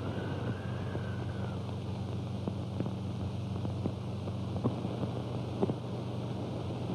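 A car engine idling steadily, with a thin wavering tone that rises and falls and fades out about a second and a half in. Scattered light clicks run over it.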